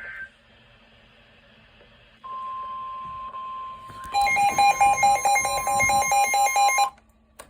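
Weather alert tones: a steady single-pitch alert tone near 1 kHz, of the kind sounded before a National Weather Service warning, starts about two seconds in. About four seconds in, a louder electronic alarm joins it, beeping in a fast repeating pattern of stepped pitches for about three seconds, and then both cut off briefly near the end.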